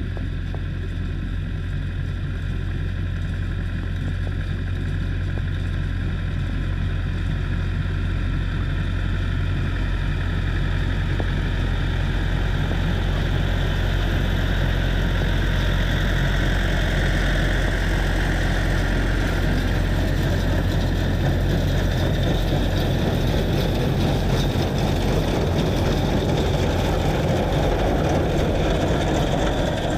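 YuMZ-6 tractor's four-cylinder diesel engine running steadily: a continuous low drone with a mid-range rush over it that swells a little after the middle.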